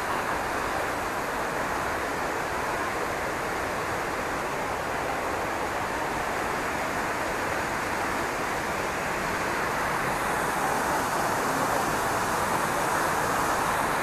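Steady rush of a waterfall and its rocky river, growing a little louder near the end.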